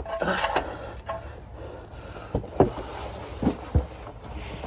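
A few short knocks over a steady low rumble.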